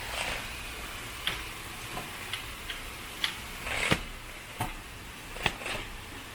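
Irregular light clicks and taps, one or two a second, with a short rustle about four seconds in, as the roll-down outdoor balcony blind is worked.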